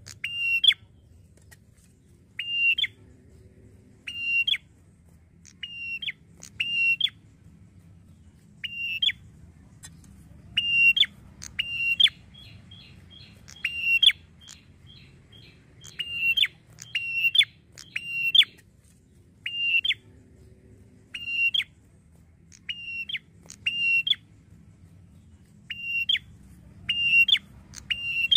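Red-headed tailorbird calling: loud, sharp single notes repeated every second or two, sometimes in quick pairs, with a run of faster, softer ticking notes about twelve seconds in.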